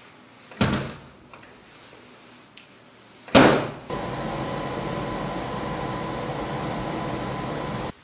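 Girbau commercial tumble dryer: its door is swung shut with a thud about half a second in and a louder thud about three seconds in, then the dryer runs with a steady hum and a faint high tone.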